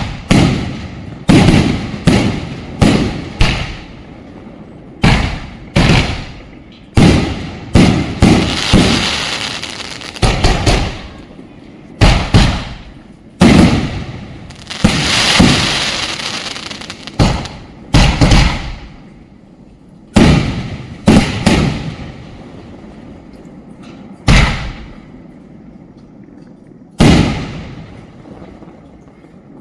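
Sony Euro 2 56-shot multi-shot firework cake firing: loud bangs one after another, coming about once a second at first and then further apart near the end. There are two longer stretches of hiss among the bangs.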